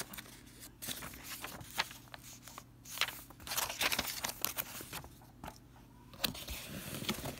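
Paper manuals and cardboard packaging rustling and crinkling as they are handled, with scattered light clicks and taps.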